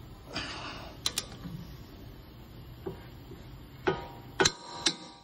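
Sharp metallic clicks and clinks with a short ringing tail from a long-handled socket wrench on the rear wheel hub bolt, which is being tightened to torque and then an angle turn. Most of the clicks come in the last second and a half.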